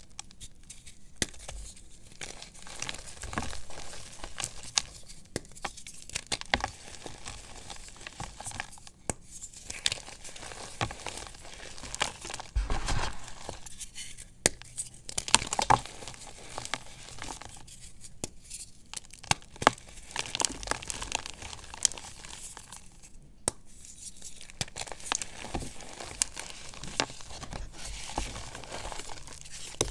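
Blocks of gym chalk being crushed and crumbled by hand in a tub of loose chalk powder: dry crunching and crackling with sharp little snaps as pieces break, coming in repeated handfuls with brief quieter pauses between.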